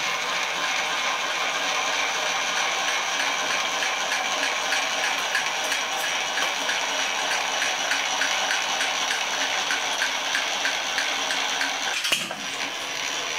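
Milling machine running with its table moving on power feed: a steady mechanical whir with a regular ticking. About twelve seconds in there is a single knock, after which the running goes on a little quieter.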